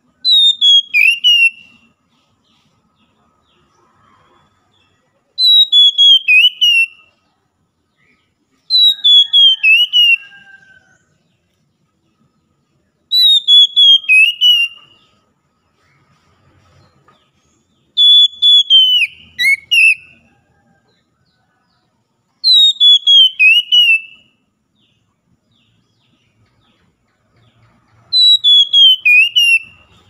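Oriental magpie-robin singing: seven loud whistled phrases, one every four seconds or so, each a quick run of notes falling in pitch.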